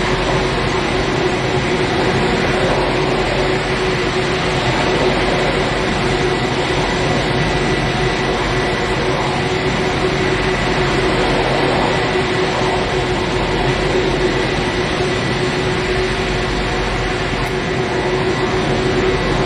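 Ilyushin Il-76TD-90VD's PS-90A76 turbofan engines running at idle: a loud, steady rush of jet noise with a constant hum and a thin high whine over it.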